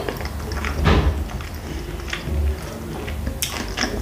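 Close-miked eating of a khinkali dumpling: biting into the soft dough, sucking and chewing, with wet mouth clicks and smacks. The loudest of these comes about a second in.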